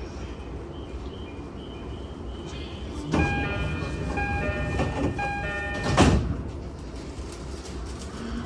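JR E231-series commuter train door-closing chime, a repeating electronic chime pattern lasting about three seconds, then the sliding doors thud shut about six seconds in, over the steady hum of the stopped train. The uploader describes this door chime as slightly degraded.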